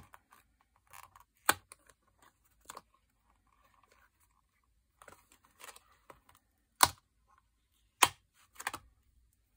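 Light clicks and taps of thin metal cutting dies being picked up and laid onto a sheet of paper. Several sharper clicks stand out, the loudest two in the later part.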